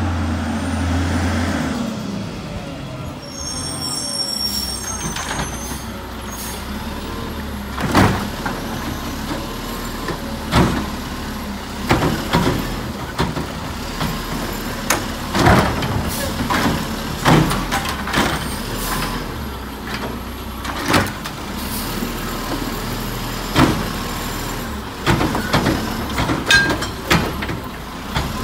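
McNeilus Autoreach Full Eject side-loading garbage truck at work: a steady low engine hum with a string of sharp bangs and clanks, most of them from about eight seconds in.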